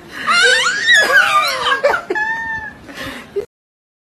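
Baby's high-pitched squeals and giggles, gliding up and down in pitch. The sound cuts off suddenly about three and a half seconds in.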